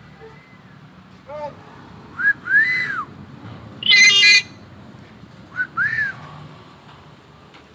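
Common hill myna whistling: twice, a short note followed by a longer whistle that rises and falls. About four seconds in, between the two, comes a loud harsh squawk, with a brief short call about a second in.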